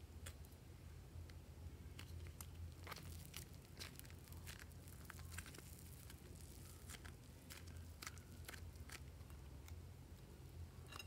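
Soft modelling clay squeezed and kneaded by hand, giving faint, scattered crackles and crunches.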